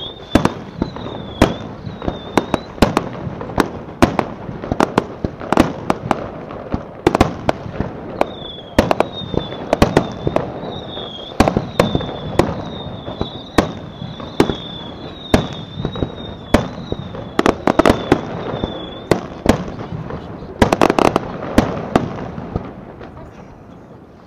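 Aerial fireworks shells bursting in quick succession, sharp bangs several times a second with a high wavering whistle over much of it. A dense run of bangs comes about 21 seconds in, then the bursts thin out and the level drops near the end.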